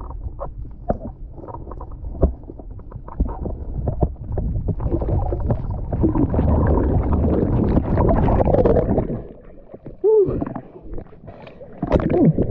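Underwater camera audio while swimming: muffled clicks and knocks over a low rumble, then a louder rush of water past the housing from about five to nine seconds as the diver kicks upward. Two short swooping sounds come near the end.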